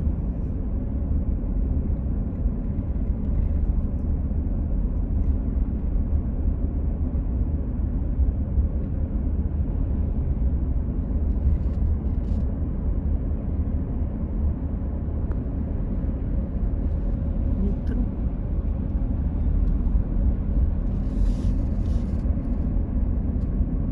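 Steady low rumble of a car driving, heard from inside the cabin: engine and tyre noise with no change in pace.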